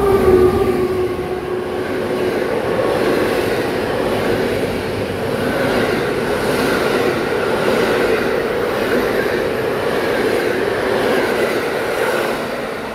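Passenger express hauled by an EP09 electric locomotive passing a station platform at speed. The locomotive's horn fades out in the first couple of seconds, then the coaches' wheels make a steady rush and rumble on the rails, easing slightly near the end.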